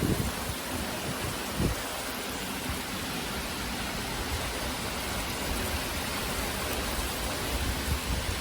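Heavy thunderstorm rain pouring down as a steady, even hiss. A few brief low bumps break in, one right at the start and one about a second and a half in.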